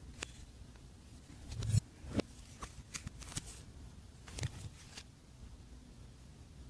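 Glossy slime being worked by hand, giving irregular sticky pops and clicks, with the loudest, fuller squelch just before two seconds in.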